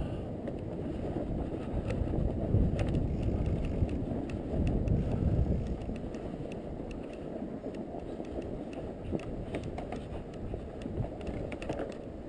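Fat bike being ridden through snow: a steady low rumble of wind on the microphone and tyres, with scattered sharp clicks and rattles from the bike. The rumble is louder for the first half and eases after about six seconds.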